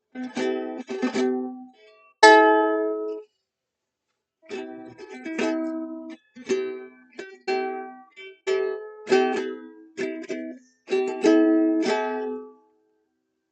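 Music: a small plucked string instrument, ukulele-like, strumming chords in short phrases, with a break of about a second roughly three seconds in.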